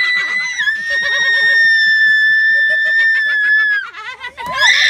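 A young woman screaming in fright: one long, high-pitched scream held for nearly four seconds, then a second, shorter scream rising near the end. Laughter runs underneath.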